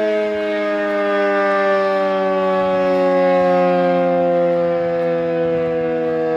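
Sentry 40V2T dual-tone outdoor warning siren sounding, its chord sliding slowly down in pitch.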